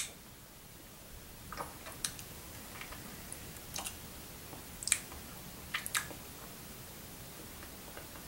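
Faint wet mouth sounds of beer being tasted: a short sharp smack at the very start, then about half a dozen scattered lip smacks and tongue clicks.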